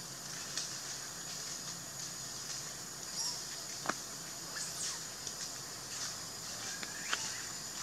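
Forest ambience: a steady high-pitched insect drone, with a few short sharp chirps and clicks, the strongest about four seconds in and again about seven seconds in.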